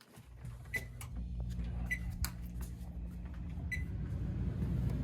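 Vending machine keypad buttons being pressed while setting prices: several short clicks, three of them followed by a brief high beep, over a steady low hum.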